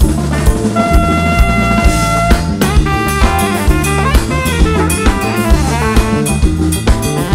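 Afro-jazz band playing live: the saxophone holds a long note about a second in, then runs through quicker phrases. Under it, a drum kit keeps a steady groove and an electric bass guitar plays a moving line.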